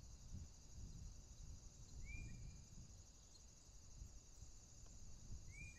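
Faint outdoor ambience: insects trilling steadily and high, over a low wind rumble, with a short bird chirp about two seconds in and another near the end.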